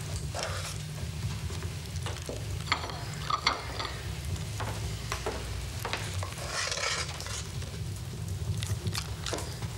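A spoon scraping and knocking inside a metal pot as food is dished out onto plates, with scattered clinks of crockery.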